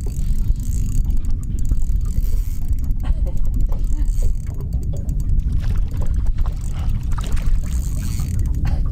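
Steady low rumble of wind and water on an open boat, with a small spinning reel being wound in against a hooked fish.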